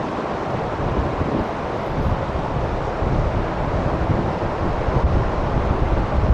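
Wind gusting across the microphone: low, uneven buffeting under a steady rushing hiss.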